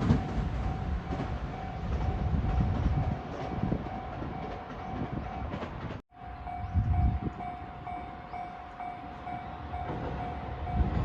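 Japanese level crossing's electronic warning bell ringing in steady pulses, about two a second, over the low rumble of a train that fades over the first few seconds. The sound drops out briefly about six seconds in, then the bell carries on.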